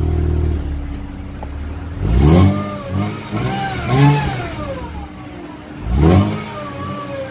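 Ford BA Falcon's Barra engine, heard from inside the cabin. Its raised revs drop back to idle about half a second in, then it is blipped up and let fall back four times. The blips probe a hesitation just off idle, a dead spot the owner puts down to the engine running lean.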